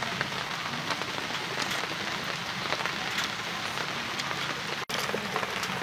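Steady hissing background noise with scattered light ticks, dropping out for an instant near the end.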